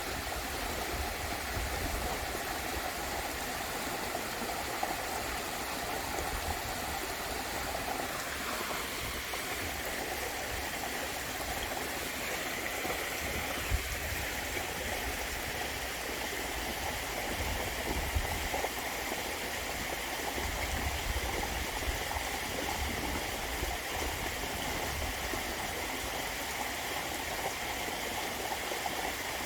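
Waterfall: water falling and rushing in a steady, even splash.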